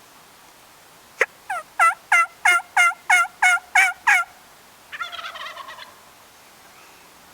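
A series of about nine loud turkey yelps, evenly spaced about three a second, followed a second later by a fainter, rattling tom turkey gobble.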